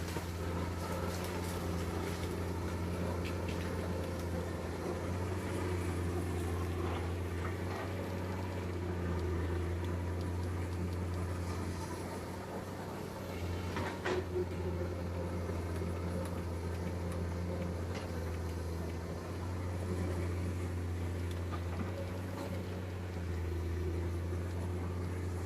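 Heavy diesel earthmoving machinery running steadily, its engine note swelling and easing with the load, with a few short knocks about halfway through.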